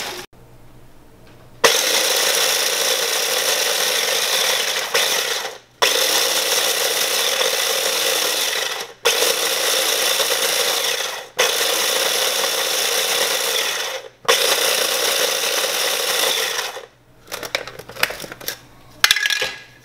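Electric mini food chopper grinding ghost pepper chips into crumbs, run in five pulses of a few seconds each with brief stops between. Near the end, irregular plastic clicks and clatter as the chopper bowl and lid are handled.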